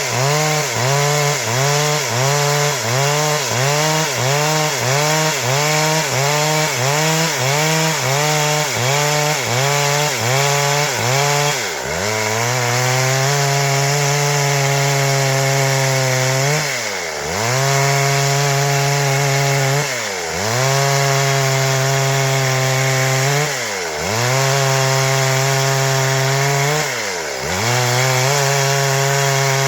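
Stihl MS 382 two-stroke chainsaw running at high revs while cutting wood. For the first twelve seconds the engine pitch wavers up and down about one and a half times a second. After that it runs steady, dipping briefly four times and coming straight back up.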